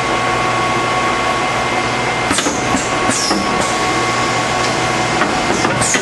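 Automatic gear-crimp station's machinery running: a steady hum with a constant whine. From about two seconds in come clicks and short falling hisses as the pick-and-place unit moves a gear assembly.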